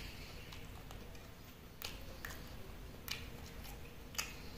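A few short, soft clicks and scrapes of a metal spoon against a plate while eating, over faint room tone.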